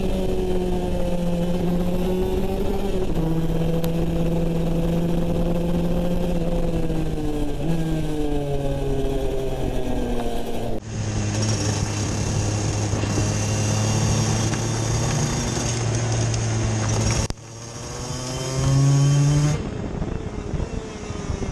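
Go-kart engine running hard on track, its pitch rising and falling as the kart accelerates and brakes through the corners. The sound changes abruptly twice.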